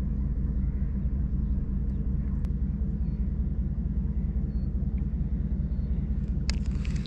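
A steady low engine rumble with a constant hum, and a single sharp click near the end.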